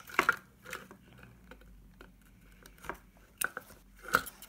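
Cardboard and plastic toy packaging being handled: a few scattered light clicks and taps with faint rustling between them.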